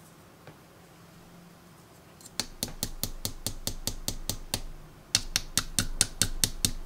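A ratcheting hand screwdriver clicking in a quick, even rhythm of about five or six clicks a second as screws are driven into the plastic housing of a Ryobi impact driver. The clicking starts a couple of seconds in and gets louder about five seconds in.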